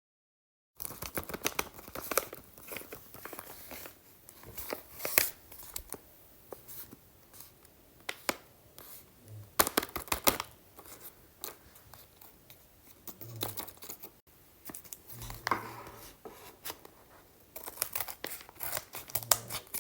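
Skincare products and their packaging being handled: irregular bursts of crinkling and rustling with sharp clicks and taps, loudest about 5 and 10 seconds in.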